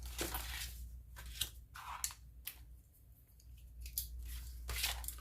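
Writing on paper by hand: a string of short, uneven scratching strokes, with a steady low hum underneath.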